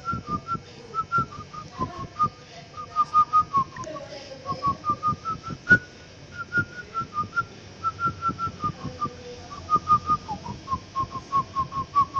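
A person whistling a quick run of short, clipped notes that step up and down in pitch like a tune.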